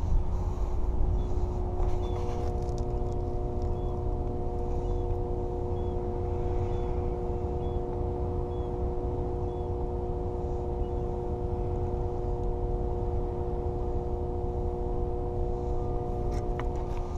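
A steady mechanical hum of a few constant tones over a low rumble, like a machine or engine running. The hum starts about two seconds in and stops just before the end.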